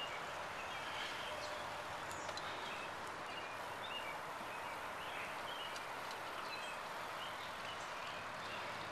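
Steady rushing wind and tyre noise from a bicycle rolling along a paved path, with small birds chirping in short, scattered high notes throughout.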